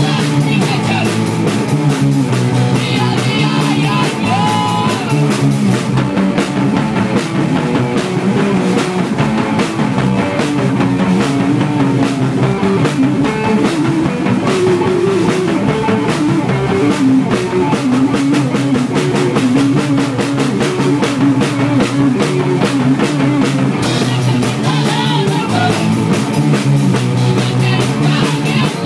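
Punk rock band playing live in a practice room: distorted electric guitars and a full drum kit, with shouted vocals at times. The cymbals thin out through a long middle stretch and come back in full near the end.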